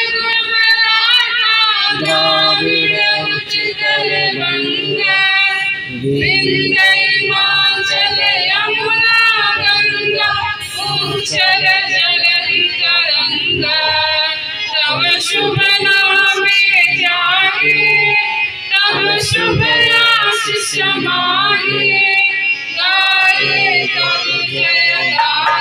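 Music: a female voice singing a melody over an instrumental backing.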